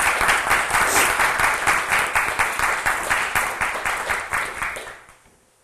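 Audience applauding with dense, even clapping that thins and dies away about five seconds in.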